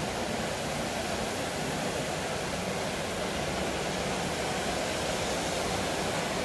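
Tezutsu hanabi, a bamboo-tube firework, spewing its fountain of sparks with a steady rushing hiss that does not let up.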